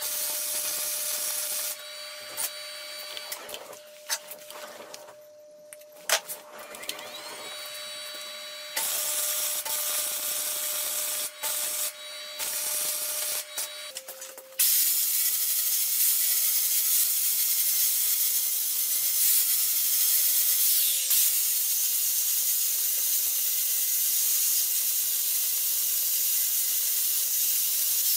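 Electric arc welding on steel in several separate bursts of a second to a few seconds each, with pauses between. About halfway through, an angle grinder starts grinding the steel and runs steadily to the end.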